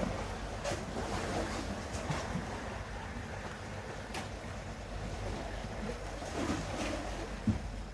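Sea waves washing in a steady rush, with wind rumbling on the microphone and a few faint knocks.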